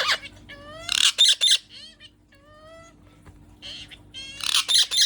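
Parrot squawking: loud harsh squawks about a second in and again near the end, with shorter calls sliding down in pitch between them.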